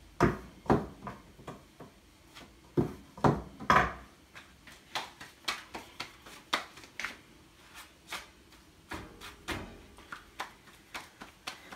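Knocks and taps of flour tortilla dough being rolled out on a kitchen counter with a length of water pipe used as a rolling pin: a few louder knocks in the first four seconds, then a run of lighter taps about three a second.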